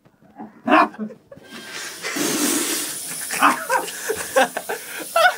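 A man coughing and retching in sharp bursts, choking on a mouthful of ground cinnamon. From about a second and a half in, a sink tap runs steadily as he drinks from it.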